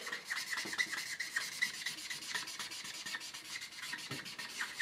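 Black marker pen rubbing and scratching on flipchart paper in quick, short back-and-forth strokes as a tiger stripe is drawn and filled in.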